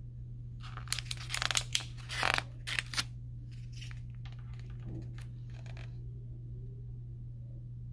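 Pages of a hardcover picture book being turned: a cluster of paper rustles and crinkles from about one to three seconds in, then a few fainter rustles a couple of seconds later, over a steady low hum.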